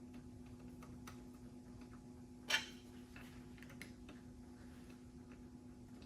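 Faint clicks and taps of a plastic transducer cable keeper and its hardware being fitted by hand, with one sharp click about two and a half seconds in, over a steady low hum.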